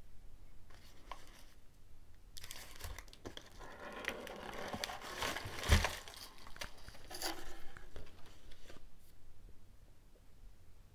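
Packaging being handled, crinkling and tearing for several seconds, with a single thump a little past halfway.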